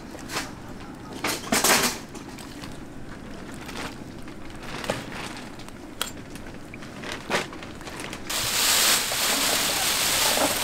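Scattered knocks and clicks of cooking utensils, then about eight seconds in a loud, steady sizzle of hot frying oil starts.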